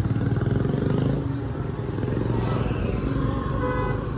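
Scooter engine running close by as it rides past, with a fast low pulsing that is loudest in the first second. A vehicle horn toots briefly near the end.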